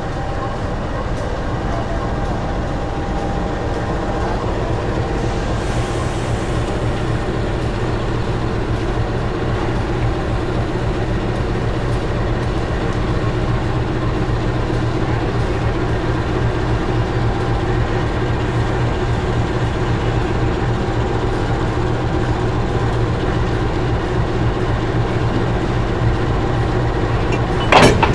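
A CC206 diesel-electric locomotive's engine running steadily with a low, even hum. Near the end comes a brief, loud sharp sound.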